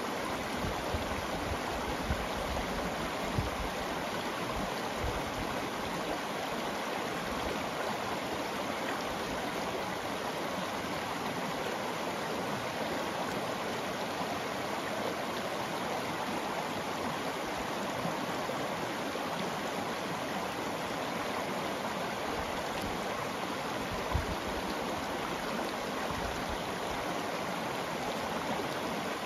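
Shallow, rocky river flowing steadily over cobbles and small stones, a continuous rushing and burbling of riffles, with a couple of brief low bumps a few seconds in and again near the end.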